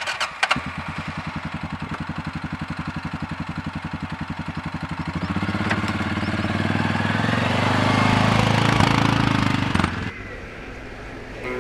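Suzuki KingQuad ATV's single-cylinder four-stroke engine starting and idling with an even pulsing beat, then revving higher and louder from about five seconds in before dropping off suddenly near the end.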